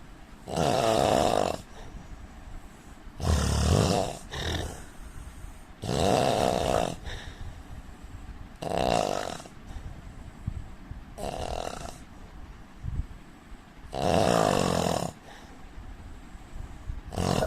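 A man snoring in his sleep, about six snores, each lasting about a second, coming evenly every two and a half to three seconds.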